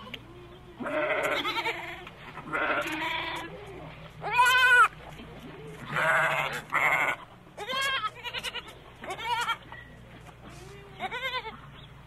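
Domestic goats bleating: about eight separate bleats, each under a second long, spaced a second or two apart, the loudest a little before the middle.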